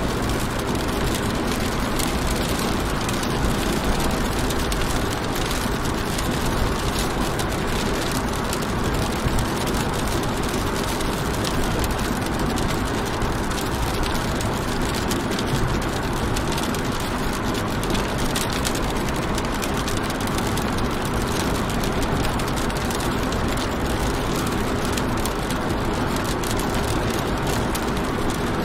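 Inside a car's cabin while driving in the rain: a steady rumble of engine and road noise, with fine rain patter on the car throughout.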